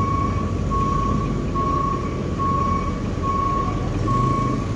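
A truck's reversing alarm beeping steadily, a long beep a little more than once a second, over the low rumble of a diesel truck engine.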